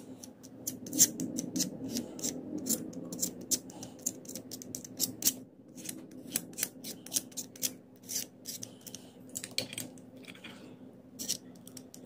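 Utility-knife blade scraping and spreading thermal paste across the ceramic face of a Peltier module: many short, quick scrapes in an irregular run, over a faint steady hum.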